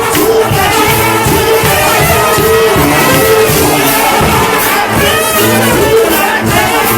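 Live gospel music played loudly by a band, with voices singing over it and crowd noise in the background.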